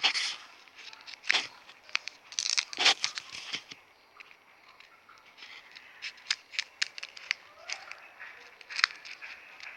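Plastic packaging being handled: crinkling and tearing with irregular sharp clicks, busiest in the first few seconds and sparser after.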